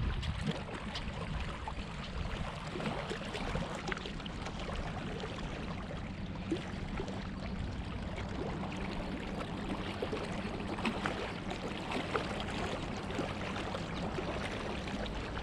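Small wind-driven waves lapping and splashing against a rocky lake shore, with wind rumbling on the microphone.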